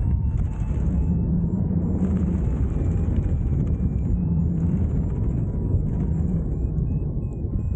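Wind rushing over an action camera's microphone in paraglider flight: a steady, loud low rumble of buffeting.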